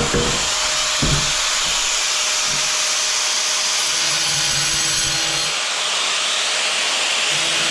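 Angle grinder cutting into a hard ceramic tile, with a steady, loud, high grinding hiss and two low knocks near the start and about a second in.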